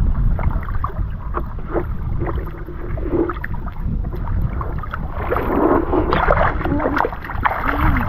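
Shallow muddy floodwater sloshing and splashing as it is worked by hand and waded through, over a steady wind rumble on the microphone. The splashing gets busier about five seconds in.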